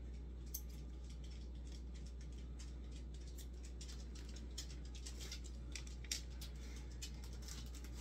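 Faint, irregular clicking of a small dog's claws on a hardwood floor, about four light ticks a second, thickest in the second half, over a steady low hum.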